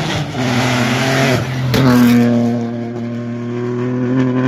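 Rally car engine running hard on a stage. Its note dips briefly with a sharp crack about one and a half seconds in, then holds a steady pitch.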